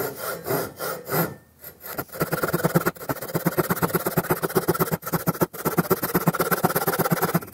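Two-sided Japanese pull saw (DeWalt) resawing a pine 1x4 along its length. A few slow strokes start the cut, then about two seconds in it settles into a fast, even rhythm of short strokes.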